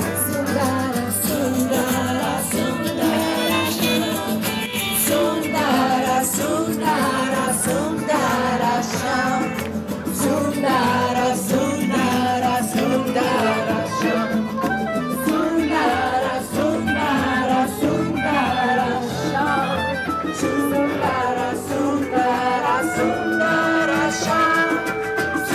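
Live band music: acoustic guitars and hand percussion playing an upbeat song, with singing.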